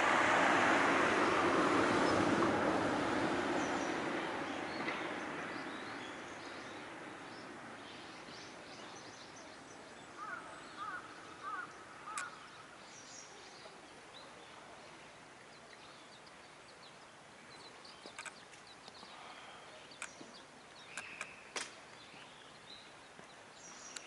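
Noise of a passing vehicle fading away over the first several seconds. Then quiet outdoor ambience with small birds chirping, a quick run of four short calls about ten seconds in, and a few sharp clicks near the end.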